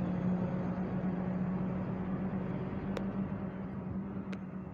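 A train running with a steady low hum and rumble that fades slightly toward the end, with two sharp clicks about three and four and a quarter seconds in.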